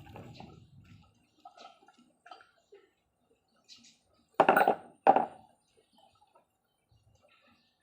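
Metal engine parts being handled on the bench: light clinks and taps, then two loud metal clanks about half a second apart near the middle.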